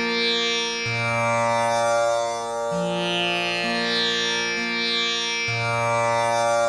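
Tanpura drone: its strings plucked one after another in a slow repeating cycle, each note ringing on with a shimmering buzz of overtones. This is the steady drone on Sa used for voice practice.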